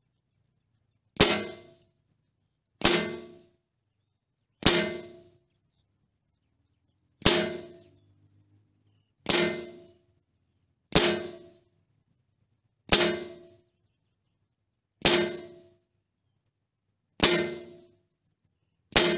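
Ten shots from a Toz 78 .22 LR rimfire rifle, fired about every two seconds, each a sharp crack that dies away within about half a second.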